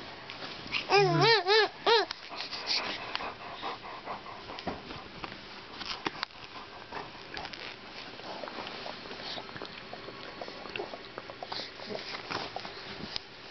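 A baby's high warbling vocal sounds: three short rising-and-falling calls about a second in. After them comes soft rustling of bedding and handling noise.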